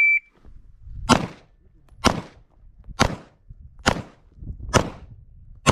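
A shot timer's high start beep ends at the very beginning, then six pistol shots from a 9mm Glock 34 Gen4 follow at an even pace of about one a second.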